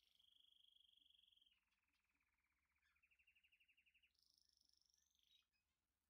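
Faint, high trilling calls of small animals, rapidly pulsed and changing in pitch and pattern a few times.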